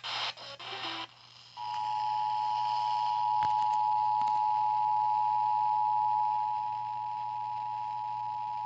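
The Emergency Alert System two-tone attention signal, a steady pair of tones near 853 and 960 Hz sounding together, starting about a second and a half in after a radio voice breaks off and holding unbroken, slightly quieter near the end. It announces an emergency alert about to be broadcast.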